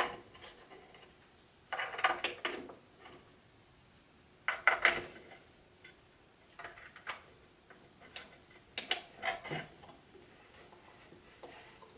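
Small metal fixing pins clinking and clicking as they are handled and pushed into the wooden parts, in short bursts of rattling clicks about every two seconds.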